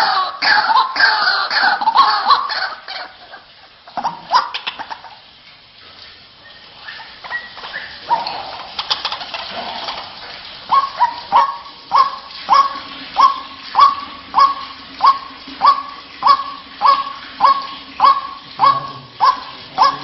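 White-breasted waterhen calls. A fast run of overlapping repeated calls fades after about three seconds, scattered calls follow, and from about halfway a steady series of sharp, evenly spaced notes comes at about two a second.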